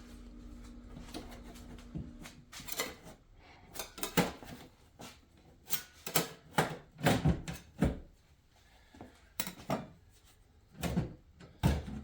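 Irregular knocks and clunks from a stove's glass cooktop being handled and lifted free of the stove body, with a busy run of knocks partway through.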